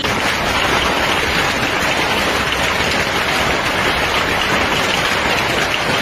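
Hailstones pelting a swimming pool and lawn: a dense, steady clatter and splash of countless small impacts on water and grass.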